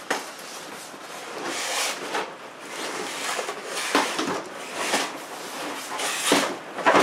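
Plastic bag rustling and styrofoam and cardboard packing scraping as a boxed bandsaw is tipped up and slid on its stand, in irregular swells with a few knocks, the loudest near the end.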